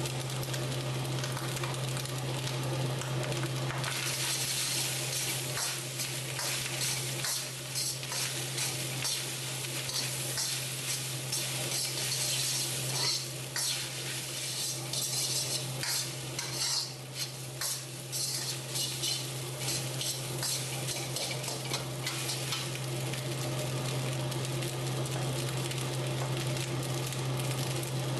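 Fried rice sizzling in a carbon-steel wok while a metal spatula stirs and tosses it, scraping and clinking against the wok. The stirring is busiest through the middle and eases off near the end.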